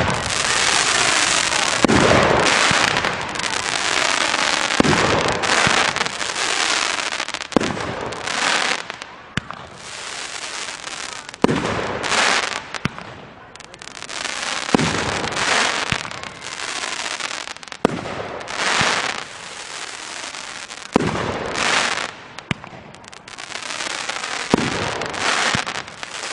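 A 500 g consumer firework cake (Pyro Demon Ultimate Power) firing shot after shot, about one every two to three seconds. Each shot's crackling tail rises and breaks into a coconut burst, and the crackle runs on almost without a break between the bangs.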